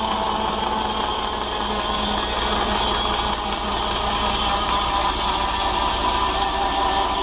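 Fordson Power Major tractor running steadily, driving a large rack sawmill's circular saw blade through its PTO, with a steady whine over the engine.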